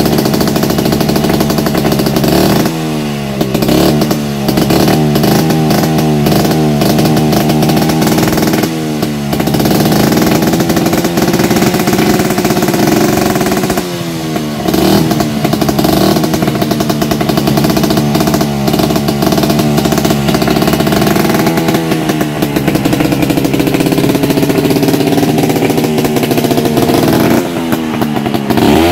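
Two-stroke Vespa scooter engine running and being revved during an engine test, its pitch dipping and climbing again several times.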